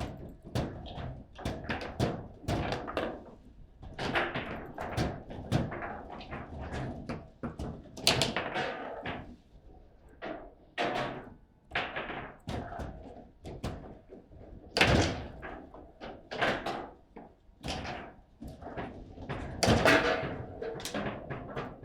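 Table football game in play: an irregular run of knocks and bangs as the ball is struck by the rod figures and the rods knock in the table, with several louder slams.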